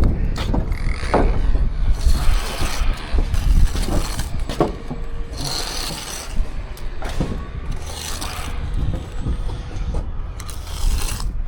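Steel trowel scraping and spreading mortar in repeated strokes, with a few sharp taps, while a timber wall plate is bedded on the wall. A low rumble of wind on the microphone runs underneath.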